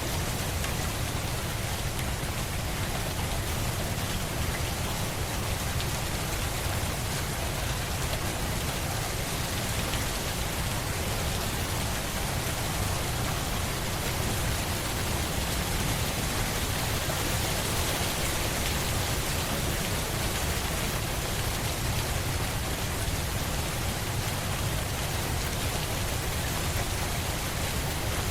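Steady rain falling: a dense, even hiss with a low rumble underneath, unchanging throughout.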